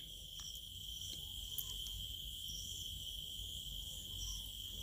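Faint background with a steady, unbroken high-pitched trill, typical of crickets.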